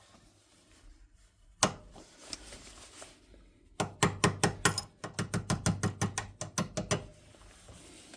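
Small metal parts of an old 1930s door latch lock being worked: one sharp click, then a quick run of about twenty small knocks, some six a second, lasting about three seconds.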